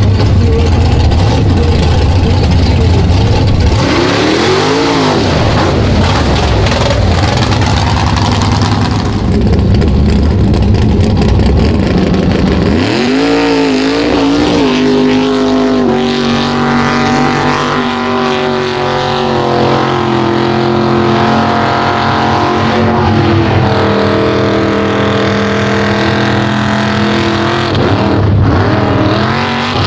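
Mega truck engines revving: first a deep rumble with a short rev that rises and falls, then, about thirteen seconds in, a truck revving up and held at high revs as it runs hard through the mud pit, its pitch stepping up and dropping near the end.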